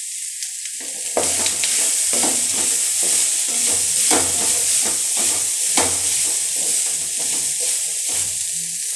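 Beetroot and grated coconut sizzling in oil in a metal kadai, stirred with a spatula: from about a second in, the spatula scrapes through the food in repeated strokes over a steady frying hiss.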